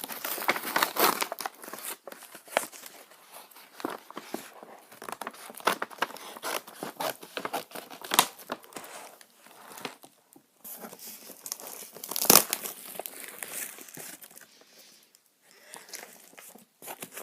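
Packaging being torn open and crinkled by hand: irregular rips and crackles, with sharp loud snaps about eight and twelve seconds in.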